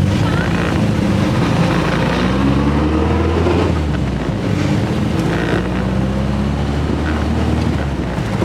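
1966 Triumph Spitfire's 1147cc four-cylinder engine accelerating: it rises in pitch, drops at a gear change about four seconds in, then rises again, with wind noise over the microphone.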